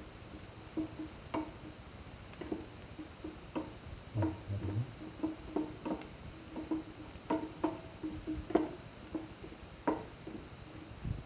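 Spatula scraping and tapping against a metal pan while sliced ginger, garlic and shallots are sautéed in a little oil: irregular clicks and short scrapes, about one or two a second.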